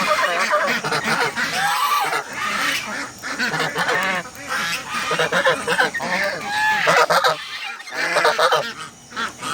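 A flock of geese honking and calling continuously, many calls overlapping.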